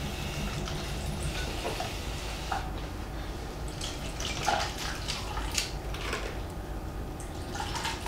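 Suntory Kakubin whisky being poured from its bottle over ice into plastic cups: a thin trickle of liquid, with a few sharp clinks.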